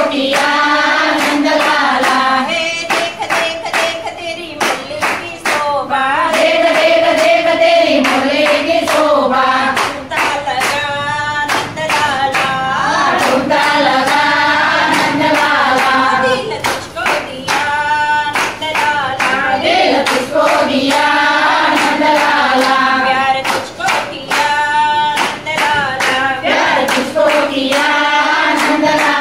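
A group of women singing a Hindi devotional bhajan to Krishna together, keeping time with steady hand-clapping.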